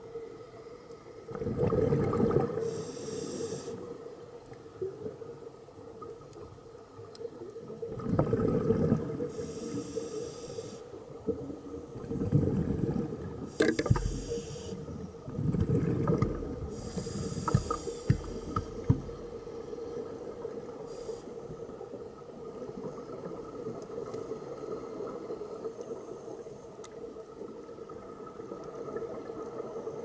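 Scuba diver breathing through a demand regulator underwater: four breaths, each a rumbling burst of exhaled bubbles and a hissing inhale, with a sharp click near the middle. After that only a faint steady hum is heard.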